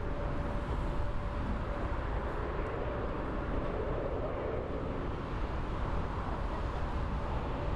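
Jet airliner engines: a steady rushing drone with a faint high whine that fades after about two seconds.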